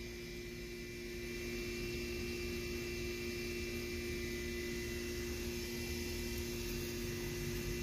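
A steady hum made of a few unchanging tones over a faint even hiss, with no distinct sounds such as barks or footsteps.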